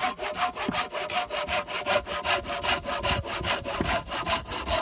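Sharp hand saw cutting through a dry log, rasping in quick, even strokes, about five or six a second.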